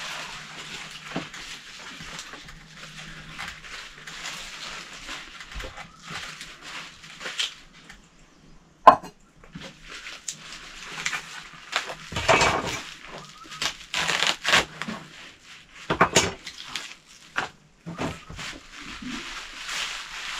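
Fresh mustard greens (rayo saag) being broken apart by hand: leaves rustling continuously, with crisp snaps of stems several times, the sharpest about nine seconds in.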